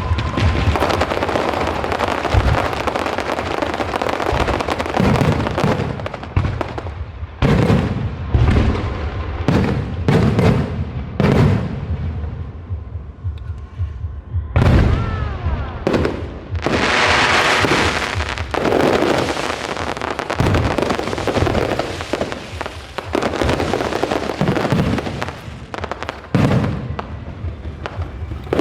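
Aerial fireworks going off in quick succession: repeated sharp bangs and booms with crackling. A few rising whistles come about halfway through, followed by a dense burst of crackling.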